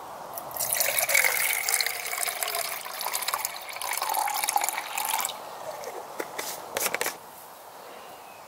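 Water poured into a stainless steel camping pot for about five seconds, the pitch of the filling climbing as it fills. Then a few light metal clinks as the pot is lifted by its wire handle.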